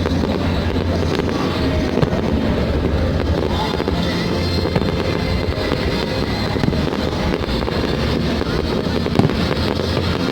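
Fireworks display with the show's music playing under a steady low rumble of shells bursting, and a few sharper bangs standing out.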